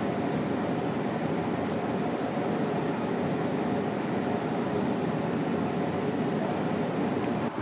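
Steady, even, low-pitched background noise with no distinct events, like room or ventilation noise.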